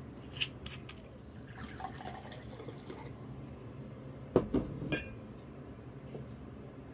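Soju and beer being poured into a glass to mix somaek, with a few light glass clinks near the start and a cluster of louder glass knocks about four to five seconds in.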